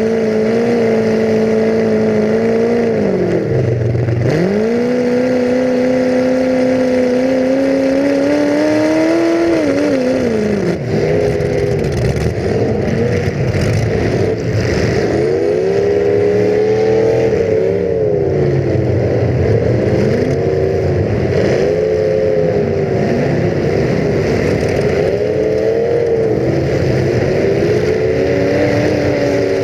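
Demolition derby car's engine heard from onboard, revving up and down repeatedly as the car is driven hard, with a long climb in pitch followed by a sudden drop and then more short swings.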